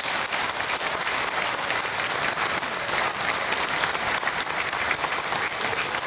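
Audience applauding: many hands clapping at once in a steady, unbroken run of claps.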